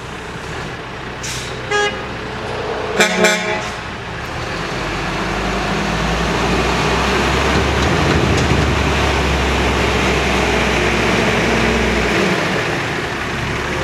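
Horn of a cab-over automated side-loading garbage truck: a short toot about two seconds in, then two quick toots a second later. After that the truck's diesel engine runs, growing louder as the truck approaches and easing off near the end.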